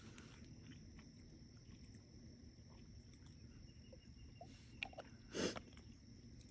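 Near silence with a faint steady high tone in the background. A few small clicks come from handling a small glass hot sauce bottle and its cap, and one short soft rustle sounds about five seconds in.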